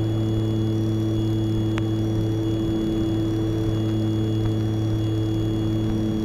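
The twin piston engines and propellers of a Piper Aerostar 602P (Superstar 700 conversion) droning steadily in flight, heard inside the cabin. A faint high steady whine runs alongside.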